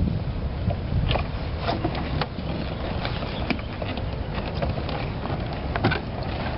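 Wind noise on the microphone, with scattered knocks and clunks as a person climbs from a dock into a small sailboat and moves about on its deck.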